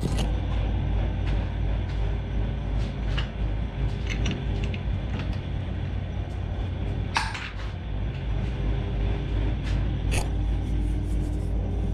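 Metal clicks and clinks as a lathe's chuck is loosened with its key and an aluminium pulley is taken out of the jaws, the sharpest clink about seven seconds in and another near the end, over a steady low hum.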